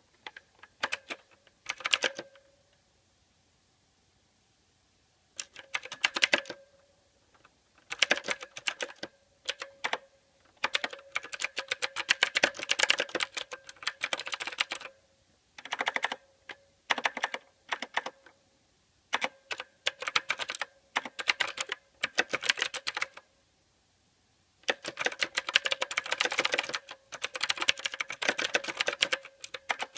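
Typing on a mechanical keyboard: rapid key clicks in bursts of a second to several seconds, broken by short pauses.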